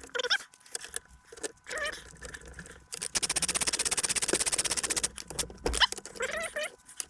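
A ratchet clicking rapidly and evenly for about two seconds, about twenty clicks a second, as it is spun on a bolt. A single dull thump follows, with small metal handling knocks before and after.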